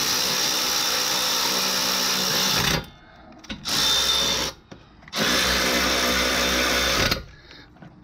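Milwaukee cordless electric ratchet running in three spells, a long one, a short one and another long one, driving in the 14 mm caliper bracket bolts.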